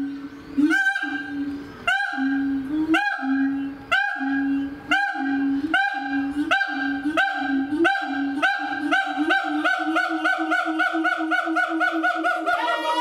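A siamang pair's loud calls, with throat sacs inflated: a low steady tone under rising whoops. The whoops come about once a second at first, then quicken into a rapid series of three or four a second near the end. The uploader takes this calling for a territorial claim.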